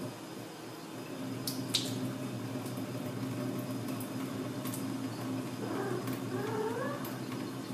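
Soaking water being carefully poured off soaked rice: a faint trickle of water with a few small drips and clicks, over a steady low hum.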